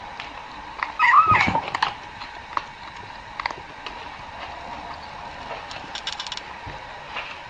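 A cat gives a short wavering vocal noise about a second in, followed by scattered sharp clicks and taps, including a quick run of clicks near six seconds.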